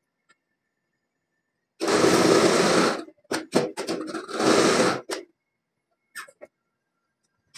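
Hydraulic press pressing down on a stacked steel pipe: two loud noisy bursts of about a second each, with several sharp clicks between them, then a few faint clicks near the end.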